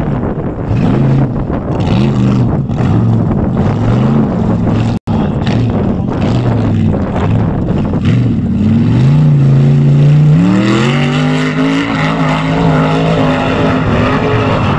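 Formula offroad race buggy's engine revving up and down again and again as it spins through mud. In the second half it climbs and holds high revs in one long steady pull. The sound drops out for an instant about five seconds in.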